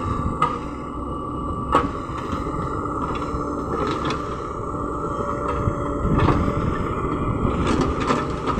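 LiuGong crawler excavator working: its engine runs steadily under load while the bucket digs into loose earth and lifts. A handful of sharp clanks come from the bucket and arm.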